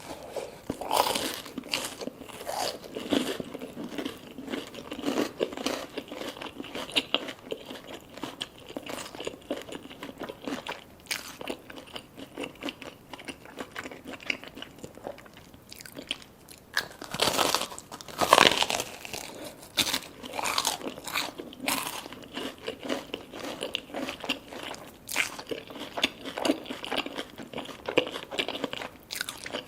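Close-miked eating: crunchy bites into crisp fried food and wet chewing, over and over, with a louder run of bites a little past the middle.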